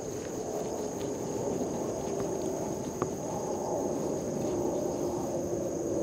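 Steady outdoor ambience: a continuous high-pitched insect trill over a low steady background rumble, with one faint click about three seconds in.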